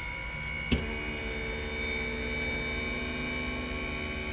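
Enstrom F-28F helicopter's electric fuel boost pump switched on with a click about a second in, then running with a steady hum, with the mixture full rich and throttle open to prime the engine before start.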